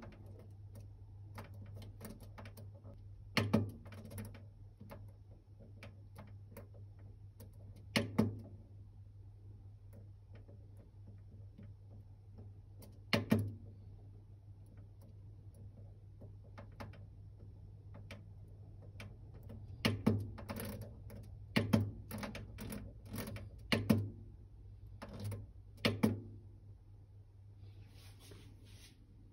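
Control knob of a Rancilio Silvia's ITO/Leva controller being turned and pressed on the steel panel: faint ticks as it turns and sharp clicks when it is pushed. The clicks come every few seconds at first, then in a quicker run about two-thirds of the way in. A steady low hum lies underneath.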